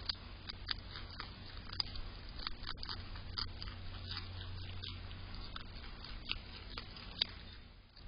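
Groundhog biting and chewing food held in its front paws, close to the microphone: irregular sharp crunching clicks, several a second.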